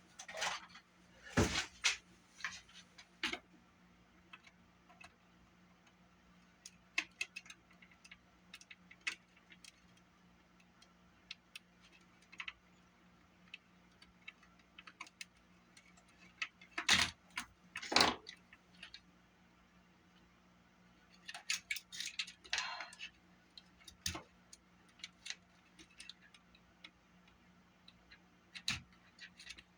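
Scattered clicks, taps and light clatter of small plastic and metal parts and hand tools being handled at a workbench, with the loudest knocks about a second and a half in and around seventeen and eighteen seconds in.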